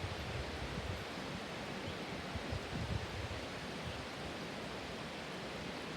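Wind rushing steadily through tree leaves, with a few low gusts hitting the microphone about two and a half to three seconds in.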